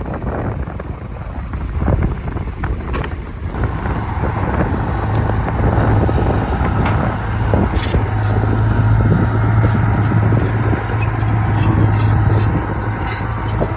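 Diesel engine of a Komatsu D31P crawler bulldozer running steadily, growing louder about five seconds in, with a run of sharp clanks in the second half.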